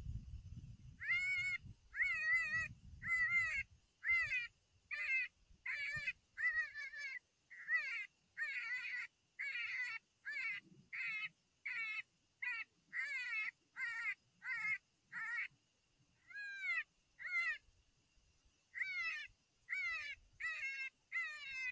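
Electronic predator call playing a prey distress sound: short, high, pitched cries repeated about once a second, with a couple of brief pauses. Used as a lure to bring the coyote in, with a little wind rumble on the microphone early on.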